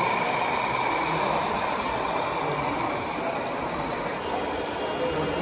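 Radio-controlled model truck running: a steady whine over a rushing noise, easing off a little about four seconds in.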